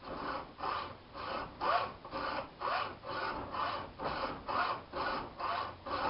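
Hacksaw with a 24-teeth-per-inch blade cutting through a steel bicycle steer tube, in steady strokes of about two a second.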